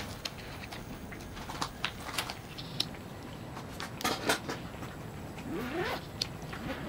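Nakiri knife slicing through soft tofu in its plastic tray, the blade giving small clicks and scrapes against the plastic, with a louder cluster of knocks about four seconds in.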